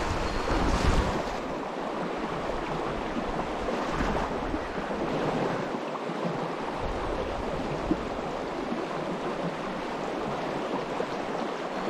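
River water rushing steadily, with wind buffeting the microphone in low rumbling gusts, strongest in the first second or so.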